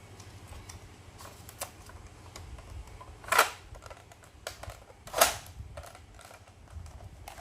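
Plastic Nerf blaster mechanism clicking as it is handled, with two louder sharp snaps about two seconds apart.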